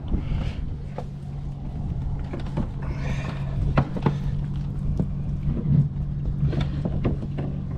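Small boat's motor running steadily at low speed with a low hum, and a few sharp knocks and rubbing as a flounder is handled right against the microphone.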